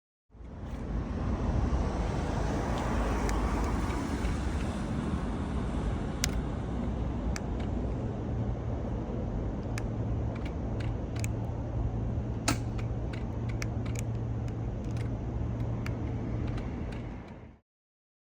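BMW R12S motorcycle's boxer twin running on the move, a steady rumble mixed with rushing wind and road noise, with a low steady drone from about eight seconds in and scattered sharp clicks.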